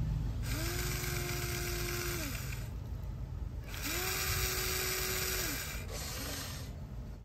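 Electric motor of a Huina 593 remote-control toy excavator whining twice, each time rising in pitch as it starts, holding steady for under two seconds, then dropping as it stops. A steady low rumble runs underneath.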